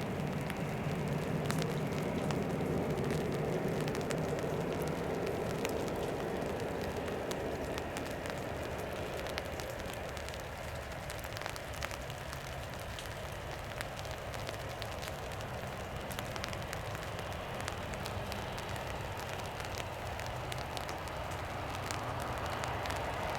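Airbus A330 jet engines on landing approach: a steady rushing engine noise with faint crackle, loudest in the first few seconds, easing off around the middle and building again near the end.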